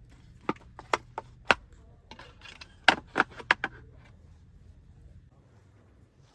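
Sharp knocks, about eight in two quick groups of four, each short with a little ringing.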